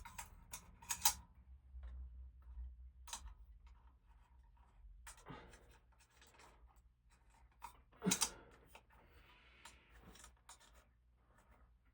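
Scattered small clicks and scraping as a light shade is fitted to a ceiling fan's light kit and its screws are turned by hand, with a louder knock about eight seconds in and a brief scrape just after.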